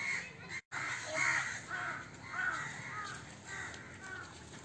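A bird calling over and over: about eight short calls in four seconds. All sound drops out briefly about half a second in.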